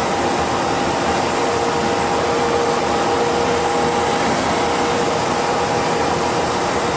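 Inside an Ikarus 256 bus at cruising speed: steady engine and road noise with a steady, high howl from the RABA rear axle's gears.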